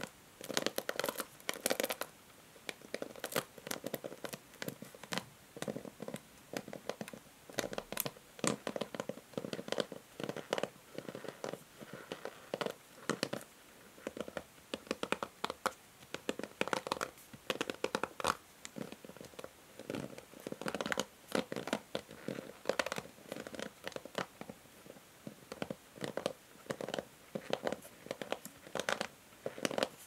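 Long fingernails scratching and flicking across the ball-tipped plastic pins of a paddle hair brush: many quick clicks and scratches in runs of about a second, with brief gaps between.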